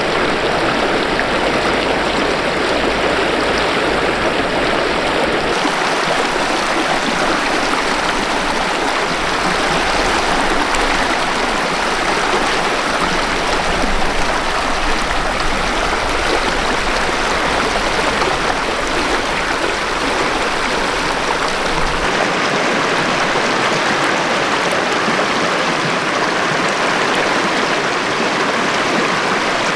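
Steady rushing of a mountain river's water over rocks, a dense even noise with no breaks. The deep low rumble under it thins out about 22 seconds in.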